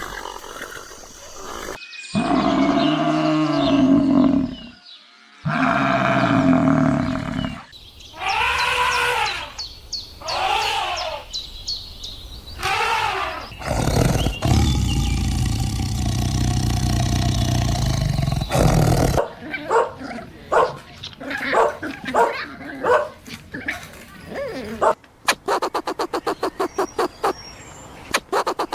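A run of different animal calls one after another: short pitched calls, then repeated swooping calls falling in pitch, then a long, loud, low, noisy call in the middle, and near the end a fast, even train of clicking pulses.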